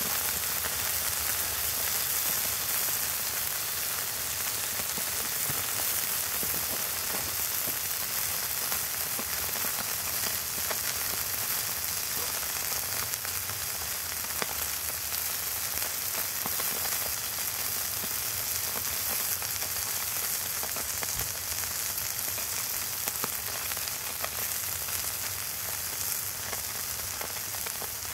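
Hamburger patty frying in a small frying pan: a steady sizzle with the grease popping off the pan in scattered little crackles.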